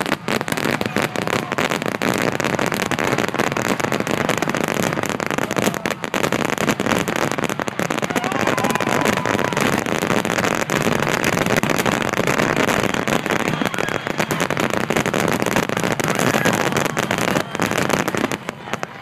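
Fireworks finale barrage: a dense, continuous rapid crackle and banging of many aerial shells bursting at once, thinning briefly near the end.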